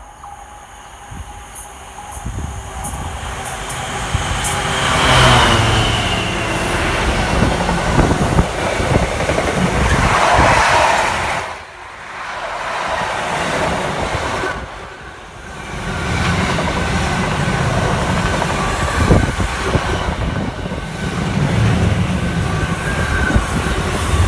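Long intermodal container freight train passing: the noise builds over the first few seconds as it approaches, then the wagons keep up a steady rolling rumble and rail clatter, dipping briefly a few times.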